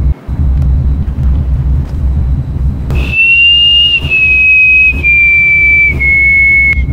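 A low droning rumble, joined about three seconds in by a high, clear whistle-like tone held in notes of about a second each, stepping down in pitch, with a few faint clicks.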